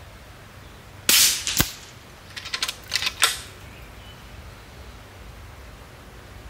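Uragan 2 PCP air rifle, fitted with an upgrade kit, firing a single .22 Zan slug at about 1,025 fps: one sharp shot about a second in with a short hissing tail, and a second sharp crack half a second later. A quick run of metallic clicks follows as the biathlon cocking handle is cycled to chamber the next round.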